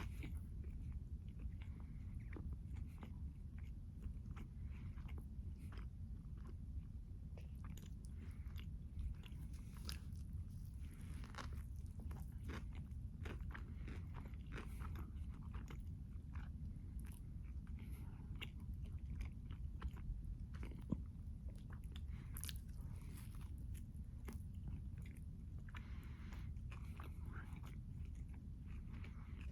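Close-miked eating: a person biting and chewing, with many irregular crunchy, wet mouth clicks, over a steady low background hum.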